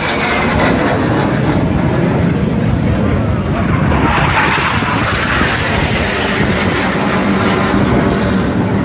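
Jet aircraft flying low past, a loud continuous engine roar that swells and brightens about halfway through as the jet passes closest.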